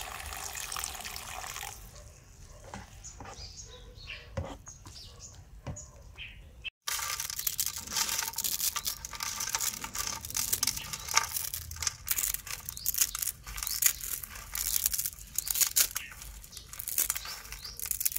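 Water poured into a hot pan of frying onion, tomato and carrot, sizzling briefly. Later a dry block of instant noodles is crushed and broken apart by hand over a metal tray, a long run of crisp crackling and crunching.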